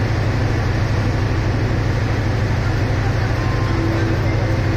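Diesel locomotive of a stationary passenger train idling: a steady low hum that does not change.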